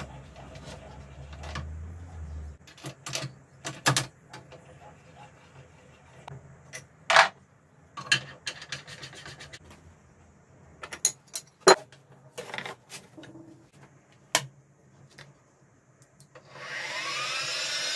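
Metal clinks and knocks of a wrench on the drawbar of an Axminster SX2.7 V2 (Sieg) mini mill as the spindle tooling is loosened and swapped. About sixteen seconds in, the mill's spindle motor switches on and runs up to speed with a rising whine.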